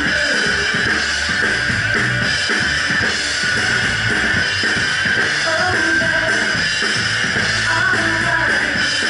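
Rock band playing live: electric guitars over a Ludwig Vistalite acrylic drum kit, at a steady level with no breaks.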